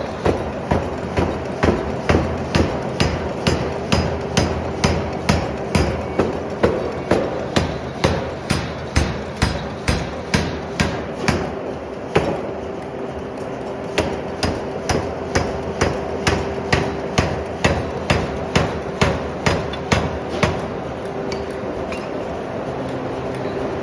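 Hand forging: a hammer striking hot steel on an anvil in a steady rhythm of about two blows a second, with two short pauses in the blows, over a steady low hum.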